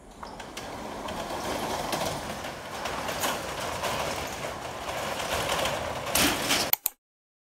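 Metal roller shutter being pulled down: a continuous rattle that grows louder as it comes down, ending in two sharp clanks near the end.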